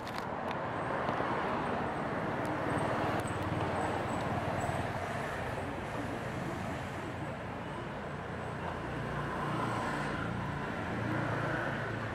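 Steady noise of passing motor traffic, swelling and fading, with a low engine drone coming up in the last few seconds.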